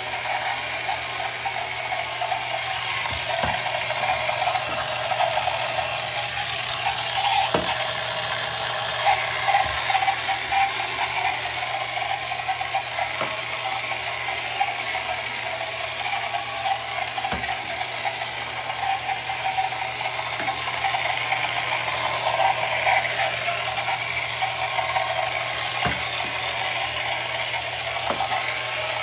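The battery-powered electric motor and gearing of a 1968 Ideal Motorific Boaterific 'Outboard Avenger' toy outboard running steadily as it drives the boat along, with a few light knocks scattered through.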